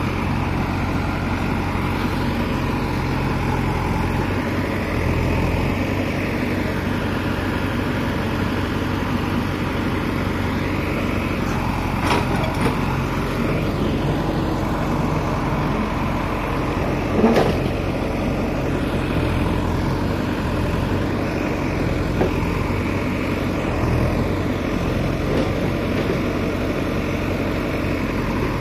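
Heavy diesel engines of a JCB backhoe loader and a stuck, overloaded dump truck running steadily, the engine note rising and falling at times as the loader pushes the truck out of the mud. A couple of short knocks, the louder about two-thirds of the way through.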